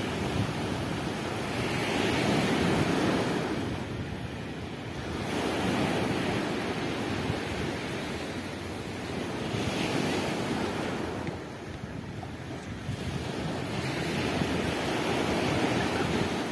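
Sea surf breaking and washing up a sandy beach, the hiss of the waves rising and falling in about four swells, one every few seconds.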